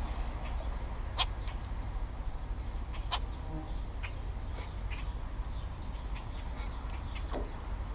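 Birds calling in short, sharp notes a few times, spaced a second or two apart, over a steady low rumble.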